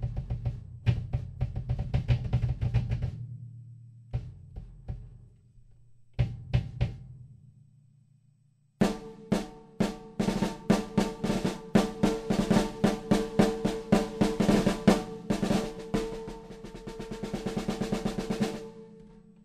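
Mapex Saturn walnut/birch drum kit played unaccompanied: fast rolls on a low tom, a few sparse hits and a brief pause, then a long run of rapid snare and tom strokes with cymbals that changes pattern shortly before the end.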